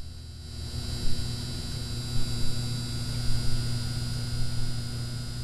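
Steady electrical hum and buzz: a low drone with a thin high whine above it over a hiss, swelling slightly now and then.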